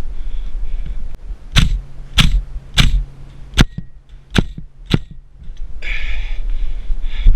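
Airsoft gun firing six sharp cracking shots, about half a second apart, with a steady hum underneath; wind noise rustles on the microphone before and after.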